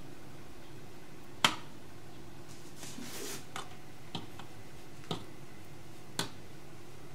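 A metal spoon clinking against a metal cake tin while spreading strawberry jam: a sharp clink about a second and a half in, a soft scrape around three seconds, then a few lighter clinks.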